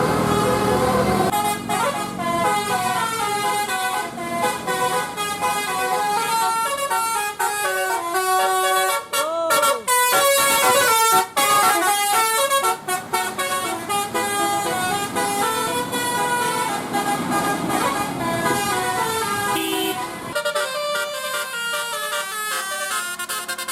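Bus 'telolet' musical air horn of the Basuri type playing a quick melody of stepped notes, several horn tones sounding together. The tune changes about twenty seconds in.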